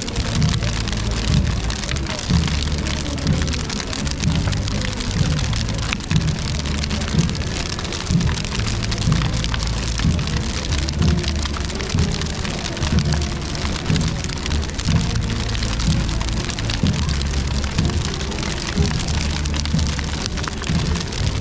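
Giant bonfire burning with a dense, continuous crackle, over music with a steady low beat.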